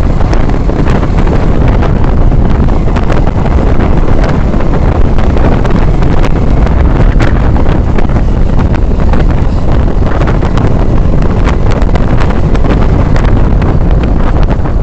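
Heavy, continuous wind buffeting on a motorcycle rider's camera microphone while riding at road speed, with scattered sharp crackles.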